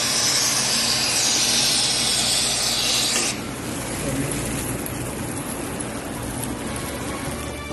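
Roasted coffee beans poured from a paper bag into a grinder hopper, a steady rattling rush. For about the first three seconds there is a brighter hiss over it, which then drops away.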